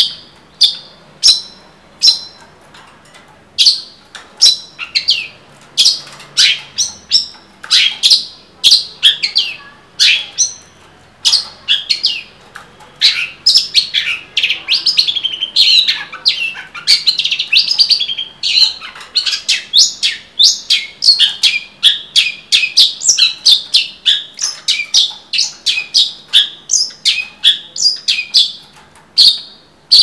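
Caged long-tailed shrike (cendet) singing loudly: short, sharp, high notes about two a second, turning after about twelve seconds into a fast, dense run of varied chirps.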